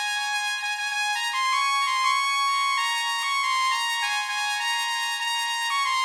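Background music: a high, trumpet-like lead plays a slow melody of held notes that step from one pitch to the next, with no bass underneath.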